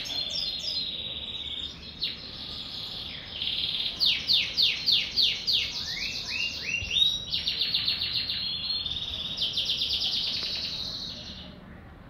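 Domestic canary singing a long, varied song of fast trills and rapidly repeated notes, with a few quick falling whistles midway, fading out near the end.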